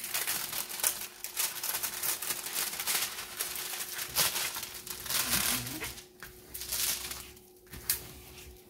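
Clear plastic protective film on a diamond-painting canvas crinkling and rustling irregularly as it is peeled back and handled, thinning out in the last couple of seconds.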